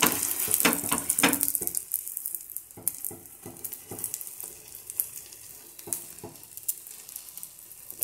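Beaten egg sizzling in oil on a flat dosa pan over a low flame, with scattered pops and crackles. It is louder for the first two seconds, then settles into a softer sizzle.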